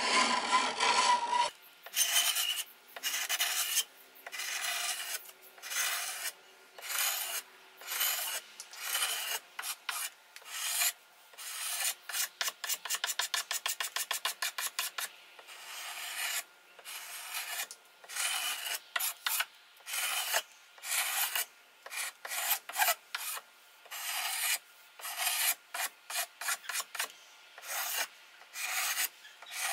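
Hand file rasping across a wooden axe handle, shaping it in repeated strokes, mostly about one a second, with a quick run of short strokes, about four a second, around the middle.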